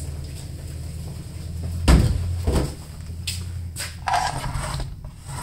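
A steady low hum, with two loud thumps about two seconds in, then a few lighter knocks and a brief rustle as the hum fades.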